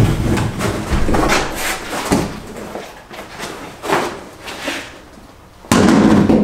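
A large fiberglass truck bedside panel being picked up and handled: rubbing and scraping on the floor, a couple of knocks, then a louder noisy burst that starts suddenly near the end as the panel is lifted and flexes.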